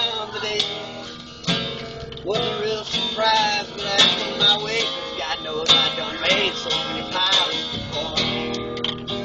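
Acoustic guitar played solo as a blues, picked and strummed, with some notes bent in pitch.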